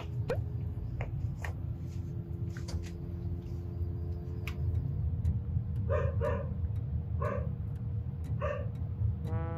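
A dog barking a few short times, in a quick pair about six seconds in and then singly, over a steady low hum.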